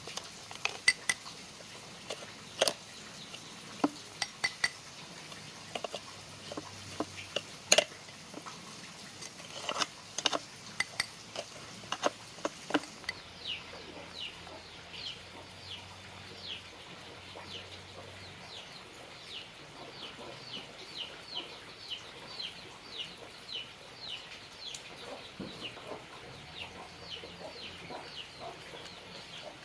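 Sharp clinks and taps of hard objects for about the first half, then a bird chirping: a long string of short, high, falling calls, about two a second.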